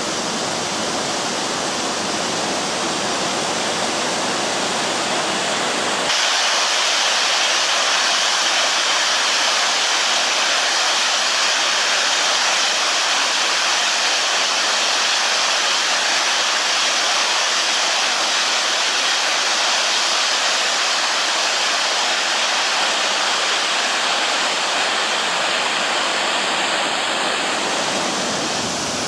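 Shypit waterfall, a mountain cascade pouring over rock steps, giving a steady rushing hiss of falling water. About six seconds in it turns louder and brighter, and it softens a little near the end.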